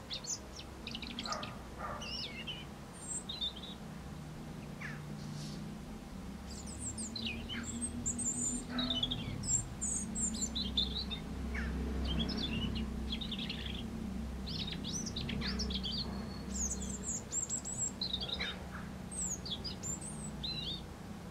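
European robin singing: high, thin warbling phrases of a second or two each, broken by short pauses, over a low steady rumble.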